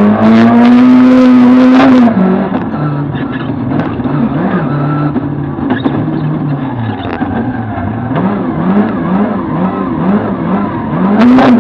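Lada VFTS rally car's engine heard from inside the cabin. It is held at high revs under full throttle for about two seconds, then the driver lifts off and it runs quieter with the revs rising and falling repeatedly in short blips. It goes back to full throttle near the end.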